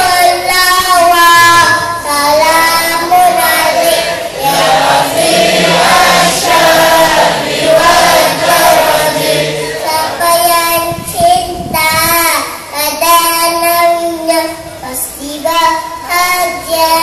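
A little boy's voice singing a selawat, a devotional song in praise of the Prophet, into a microphone over a public-address system, in long held, wavering notes.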